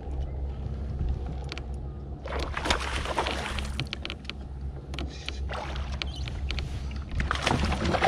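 Water splashing and sloshing against a kayak in irregular surges as a hooked largemouth bass is fought close to the boat, over a steady low rumble.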